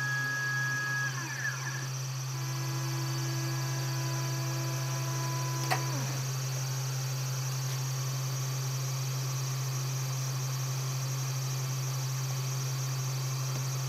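3020 CNC router running: a steady hum and high whine from the spindle, with the stepper motors adding tones that glide up and down as the axes speed up and slow down, and hold steady pitches while they travel. About six seconds in, just after a single click, the stepper tones sweep down and stop, leaving only the spindle's hum and whine.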